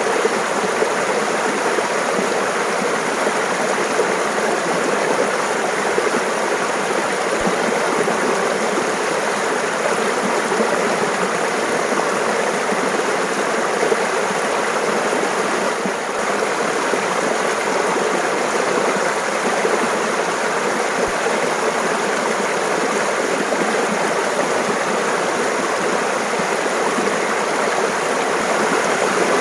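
Shallow mountain stream babbling and gurgling over rocks, a steady, even rush of running water.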